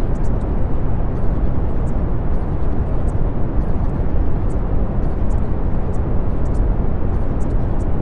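Steady brown noise: an even, deep rushing hiss, strongest in the low end, with faint short high-pitched flickers scattered over it.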